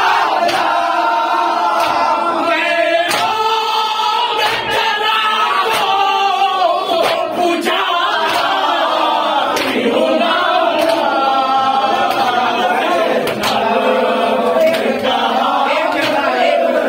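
Group of men chanting together in unison, with sharp hand strikes roughly once a second.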